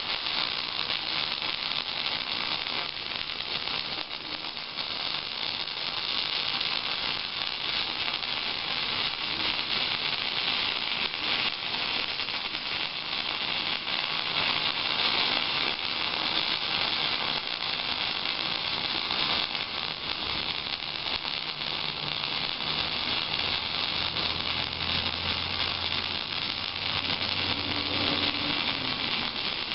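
MIG welding arc from a Miller 251 wire-feed welder laying one continuous bead on steel, a steady, unbroken crackling hiss.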